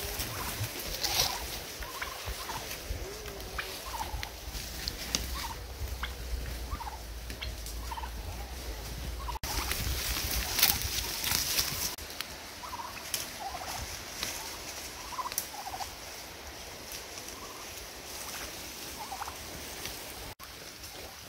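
Domestic turkeys calling, short calls repeated about every second.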